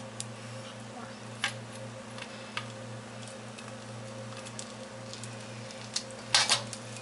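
Rice noodles dropping from a colander into a wok, giving a few scattered ticks, then metal tongs clattering against the wok in a quick burst about six seconds in as the noodles are tossed. A steady low hum runs underneath.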